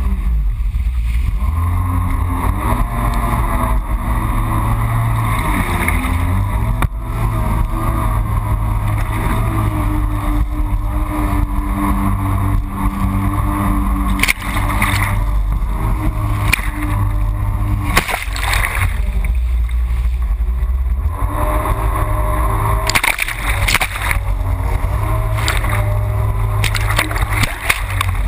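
Yamaha FX Cruiser HO jet ski engine running under way, its pitch rising and falling as the throttle changes. Water rushes and splashes over it, with bursts of spray about halfway through and again near the end.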